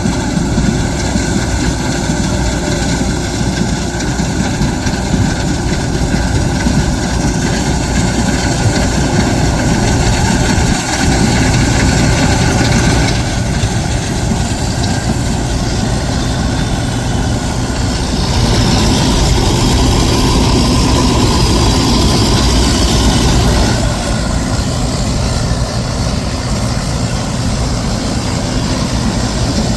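Heavy diesel farm machinery engine running steadily, getting louder and brighter for several seconds past the middle.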